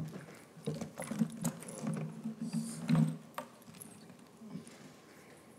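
Laptop being handled and typed on at a lectern, picked up by the lectern microphone: scattered clicks and dull knocks, loudest about three seconds in.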